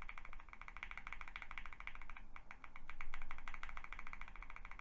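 Rapid typing on a QK65 R2 mechanical keyboard fitted with lubed and filmed Gateron North Pole Yellow linear switches: a fast, continuous run of keystroke clicks, with a brief lull a little over two seconds in.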